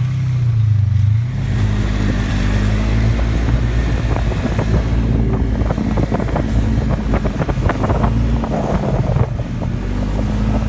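Yamaha snowmobile running steadily at speed, with wind buffeting the microphone. The engine note shifts just after a second in, and frequent short knocks come in the second half.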